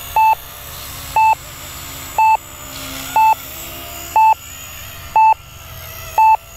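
RC radio transmitter's flight timer beeping, a short mid-pitched beep about once a second, seven times: the countdown warning that the flight time is about to expire.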